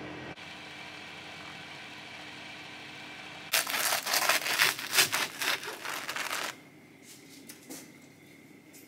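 A steady hum, then about three seconds in, a knife crunches loudly through a toasted cheese sandwich on a wooden chopping board for about three seconds, with a few small clicks after.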